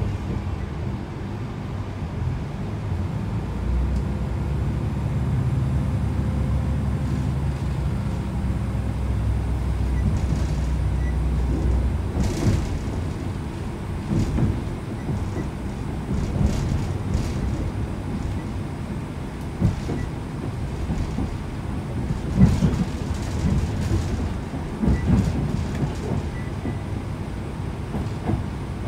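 On board a Class 165 Networker Turbo diesel multiple unit under way: the underfloor diesel engine drones steadily under power for about the first twelve seconds, then eases off. After that the wheels give irregular knocks and clacks over rail joints and points.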